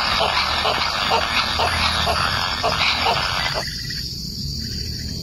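Repeated short animal calls, about two a second, over a steady high-pitched drone; the calls stop abruptly about three and a half seconds in.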